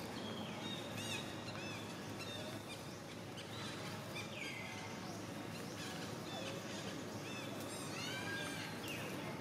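Animal calls outdoors: many short high chirps and a few longer whistles that fall in pitch, about four seconds in and again near the end, over a steady background hiss.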